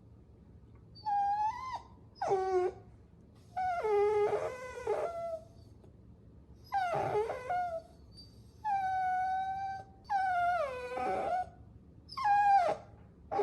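Puppy whining: a string of about seven high, pitched whimpers with short pauses between, several of them sliding down in pitch.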